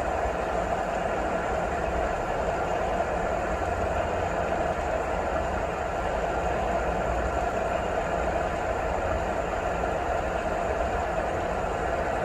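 Steady, unbroken rain noise with a low rumble underneath, played as a sleep sound.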